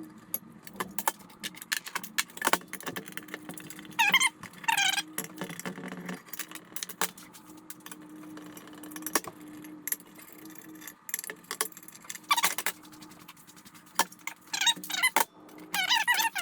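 Metal hand tools and bike parts clinking and clanking, with several short high-pitched metal squeals or scrapes, over a steady low hum.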